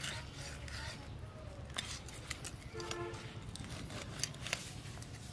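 Scales being scraped off a large katla fish against an upright boti blade: a run of short, irregular rasping strokes.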